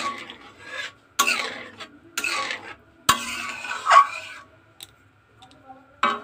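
Metal spatula stirring a thin curry gravy in a metal kadai, scraping and knocking against the pan in about four strokes roughly a second apart, then a quieter spell with a few light clicks and one more scrape near the end.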